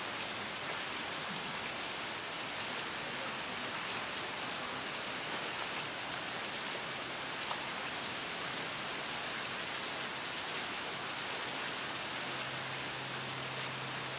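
Steady rushing hiss of falling water from a waterfall, even and unbroken.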